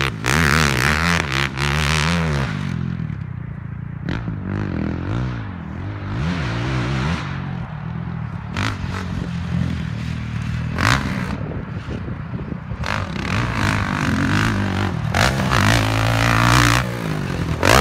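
Honda TRX450R sport quad's single-cylinder four-stroke engine, breathing through an Empire Industries full exhaust system, revving up and dropping off over and over as it is ridden around a dirt track. It is loudest near the start and again near the end as the quad comes closer, and fainter in between.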